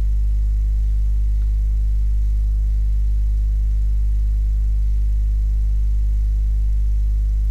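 Steady low electrical mains hum with a buzz of overtones above it, unchanging throughout.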